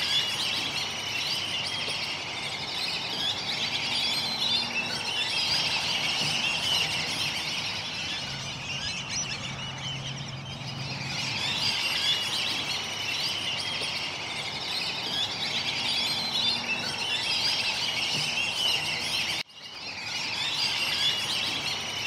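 A dense chorus of many birds calling at once, a continuous busy chatter of short, high calls. It cuts out for a moment near the end and then resumes.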